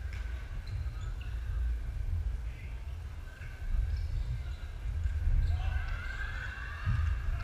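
Badminton play on a wooden sports-hall floor: footfalls thudding and sport shoes squeaking, with a few short squeaks rising in pitch about six seconds in. A steady low rumble fills the hall, with distant voices of other players.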